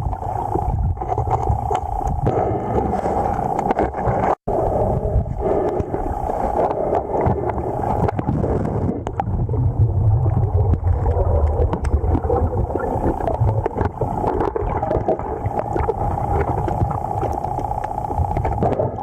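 Steady rushing and gurgling of a river current heard underwater, with many small clicks and knocks. The sound cuts out for an instant about four seconds in.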